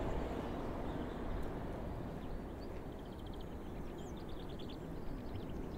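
Outdoor farmyard ambience: a steady low rumble of wind, with faint, rapid trilling bird song starting about three seconds in.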